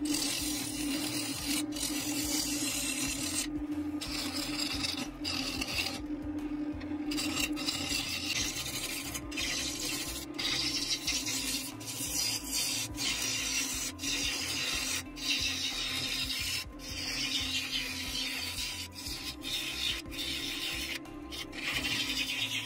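Wood lathe spinning a bowl blank while a bowl gouge cuts its outside: a steady motor hum under a continuous scraping hiss of the cut, broken by several brief pauses in the cutting.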